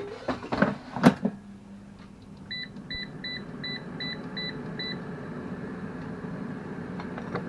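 A few knocks as the air fryer basket goes in, then seven short evenly spaced beeps from the Salter XL air fryer's control panel as it is set. Its fan then runs with a steady hum and whoosh of air.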